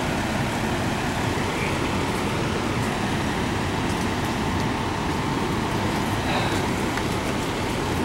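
Fire engine idling at the curb: a steady low engine rumble with outdoor traffic noise.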